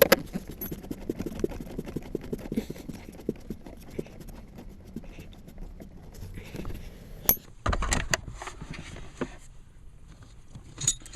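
Small clicks, rattles and knocks of screws and plastic trim being handled while a car's glove box and side panel are refitted, with a few sharper knocks about seven to eight seconds in.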